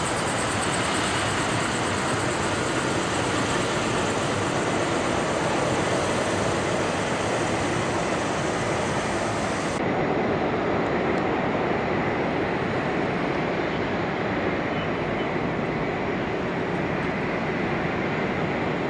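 Airbus H120 (EC120) helicopter running steadily on the ground after landing, its Arrius turboshaft and rotor giving an even, unbroken noise. The highest part of the hiss drops away suddenly about ten seconds in.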